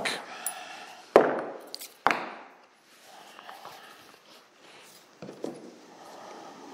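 Ball-peen hammer striking a small punch to drive a roll pin out of a tractor hydraulic valve shaft: two sharp metal taps about a second apart, then a lighter tap about five seconds in.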